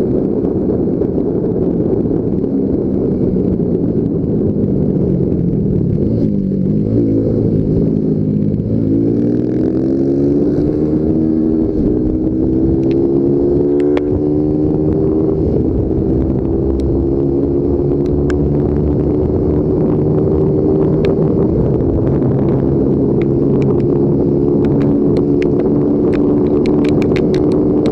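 Yamaha Factor 150's single-cylinder four-stroke engine under way with wind rush. The engine note sinks for the first several seconds, then climbs steadily from about eight seconds in as the bike accelerates hard, and holds at high revs. Scattered sharp clicks come near the end.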